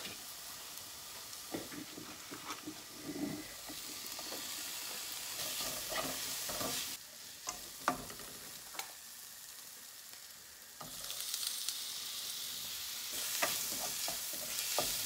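Sliced onions frying in coconut oil in a nonstick frying pan, sizzling, while a wooden spoon scrapes and knocks against the pan as they are stirred. The sizzle dies down for a few seconds, then picks up louder about eleven seconds in, as chopped tomato goes into the pan.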